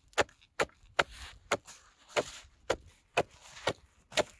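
Steel ice chisel (ice spud) chopping into thin first ice, nine sharp blows at about two a second, to open a hole for a tip-up.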